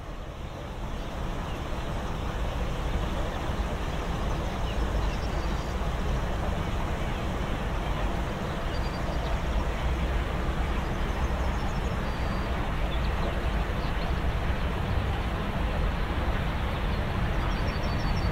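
Jet engines of an Airbus A321-200 on final approach and landing: a steady, deep rushing noise that grows gradually louder as the airliner nears.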